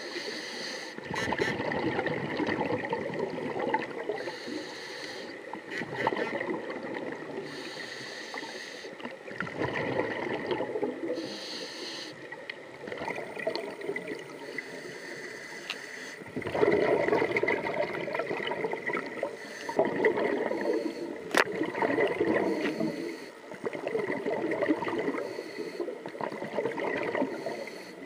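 Scuba regulator exhaust bubbling underwater as divers breathe out, in noisy surges a few seconds long every several seconds over a steady underwater wash, with a faint steady high tone beneath.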